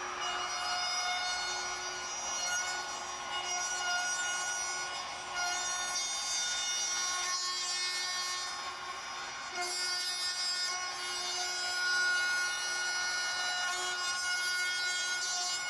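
A router with a bowl bit running at full speed and cutting wood, a steady high whine with small dips in pitch and level as the bit bites into the workpiece.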